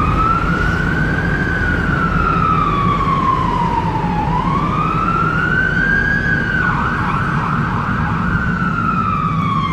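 Electronic emergency-vehicle siren in a slow wail, rising and falling about twice. A fast warble joins it for a second or two about seven seconds in. Under it is the steady rumble of the car's engine and road noise inside the moving car.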